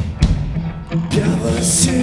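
Live rock band playing: a heavy drum hit just after the start, then held notes ring out from about a second in.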